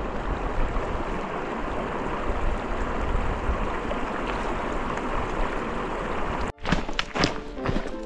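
Steady rushing noise with a fluctuating low rumble, cut off abruptly about two-thirds of the way through. Music with sharp tapping beats follows the cut.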